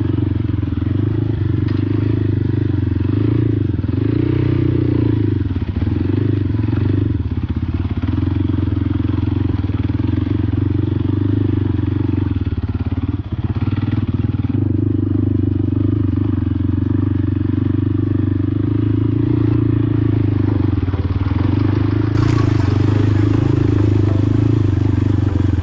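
Motorcycle engine running steadily under way, its pitch wavering a little with the throttle.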